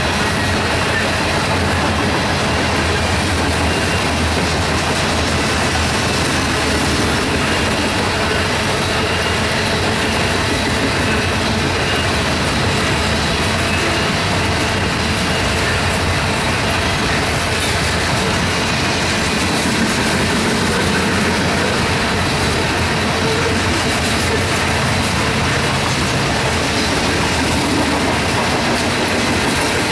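Loaded coal hopper cars rolling past on the rails, a steady, even noise of steel wheels on track.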